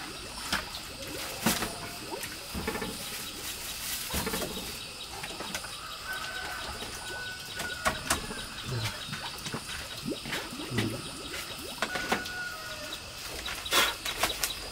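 Scattered light knocks from a bamboo shelf rack being handled, over birds chirping in the background.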